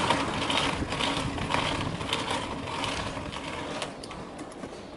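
Mountain bike being ridden up a concrete ramp, picked up by a camera on the handlebars: a rhythmic mechanical whirring and rattling from the bike and its knobby tyre, pulsing about twice a second and easing off near the end.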